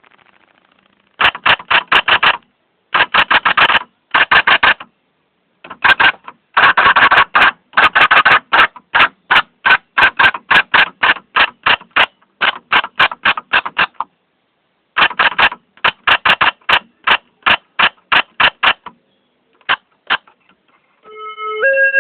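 Typewriter keys clacking in bursts of quick strokes, several a second, with short pauses between bursts. Near the end a melody of held electronic tones begins, stepping up and down in pitch.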